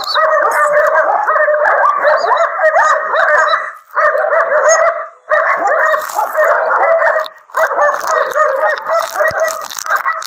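German Shepherd whining and yelping with excitement after being let out of its cage, in quick, near-continuous high cries broken by three brief pauses.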